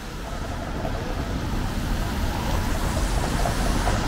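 City street ambience in the rain: a steady hiss of wet traffic with a low rumble, growing louder over the first couple of seconds.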